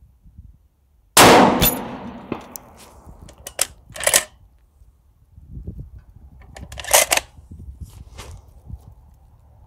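A single shot from a 6.5 Creedmoor Ruger Precision Rifle about a second in, loud and sharp with a long echoing tail. A few shorter, quieter sharp clicks follow a few seconds later.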